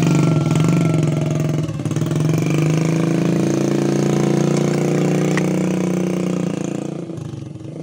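A small engine running at a steady speed, its pitch wavering slightly, then fading away near the end.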